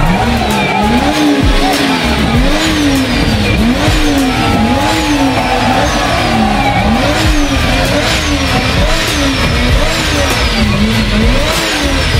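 A car engine revved over and over, rising and falling in pitch about once a second, with a high falling whistle after each rev.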